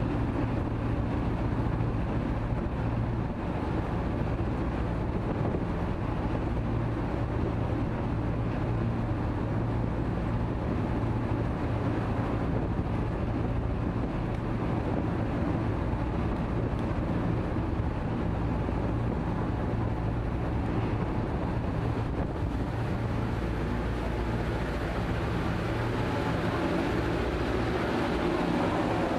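A small passenger ferry's engines running steadily at cruising speed, a constant low drone, over the rushing of its propeller wake and the wind across the deck.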